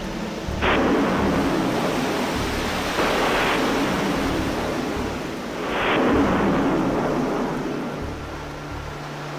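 A space shuttle solid rocket booster slamming into the ocean, heard through the camera mounted on it: three sudden crashes of rushing water, about a second in, about three seconds in and about six seconds in. Each fades into a churning wash, and the third is the loudest. Near the end it settles to a quieter steady rumble.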